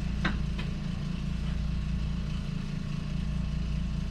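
Steady low mechanical hum, with a brief faint click or breath about a third of a second in.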